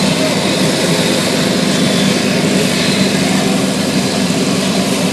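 Propeller aircraft engine running loud and steady in flight, with a strong low drone.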